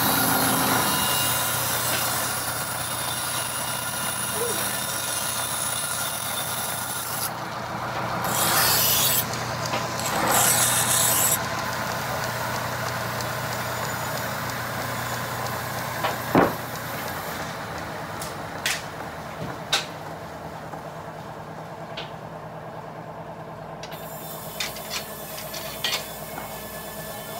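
Band sawmill running as its blade saws through a mahogany log, loudest near the start and then easing to a steadier run. A sharp wooden knock about midway and several short clicks near the end come from the timber being moved.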